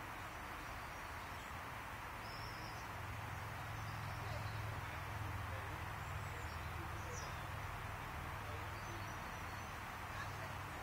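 Outdoor garden ambience: a steady hiss and a low hum that swells in the middle, with faint, short high bird chirps a few times.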